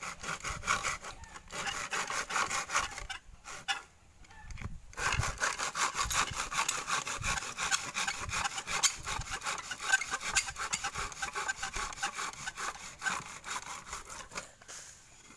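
Hand saw cutting through a green bamboo culm, in quick back-and-forth strokes. The sawing pauses briefly a little over a second in, stops for about a second and a half around four seconds in, then runs on steadily and stops just before the end.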